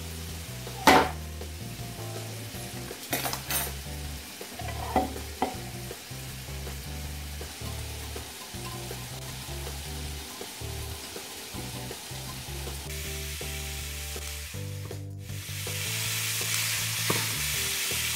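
A whisk stirring a creamy sauce in a glass bowl, with a few sharp clinks of metal utensils against the bowl in the first few seconds. Near the end, diced chicken sizzles in a frying pan, a steady hiss. Background music plays under it.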